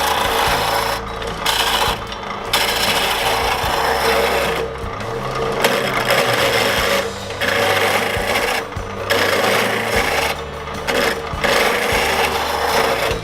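Wood-turning gouge cutting a spinning pine blank on a wood lathe, a steady rasping of chips being taken off, broken by short pauses as the tool is lifted several times. The lathe's motor hum runs underneath.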